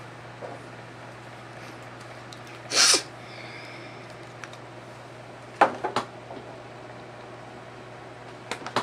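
Electric fan running on low with a steady hum. A short, loud hiss comes about three seconds in, and a few sharp clicks and knocks come near six seconds and again near the end.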